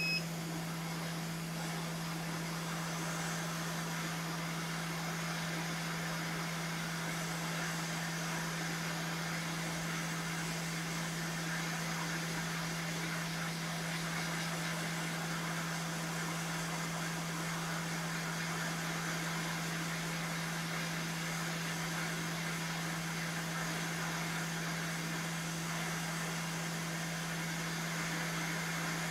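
Hot air rework station blowing steadily, a constant hiss of airflow over a low fan hum, as it heats the flight controller's MCU to melt the solder for removal. A short beep sounds right at the start.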